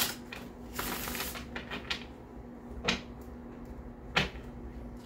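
A deck of tarot cards being shuffled by hand: a short rush of shuffling about a second in, then a few separate card snaps and taps.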